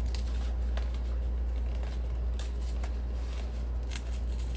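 A cardboard record mailer being worked open by hand: light scraping and a few soft clicks, over a steady low hum.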